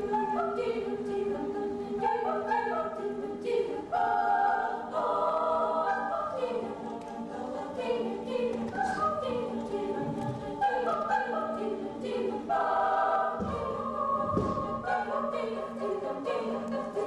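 Children's choir singing a cappella in several parts, voices holding and moving between sustained notes.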